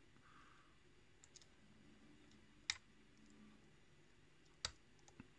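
Lock picking in a pin-tumbler lock cylinder: sparse small clicks of the pick and pins, two sharper clicks about two seconds apart and a few fainter ticks, while the picker works toward the last pin.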